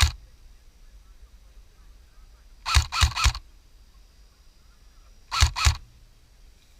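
Airsoft gun firing in short bursts of sharp shots: three quick shots about three seconds in and two more a little past five seconds.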